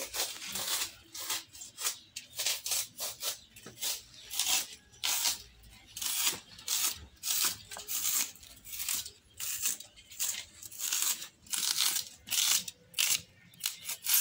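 Styrofoam being cut, a run of short scratchy strokes at about two or three a second.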